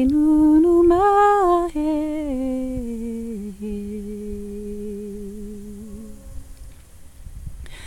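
A solo voice humming a slow wordless melody without words, its notes stepping downward to a long low held note that fades out about six seconds in.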